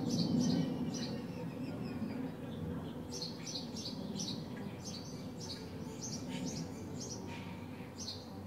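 Sparrows chirping in quick runs of short, high chirps, over a low street rumble that is loudest at the start and then fades.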